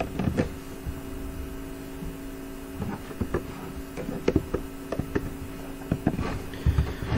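Computer keyboard clicking in scattered, irregular keystrokes over a steady low electrical hum.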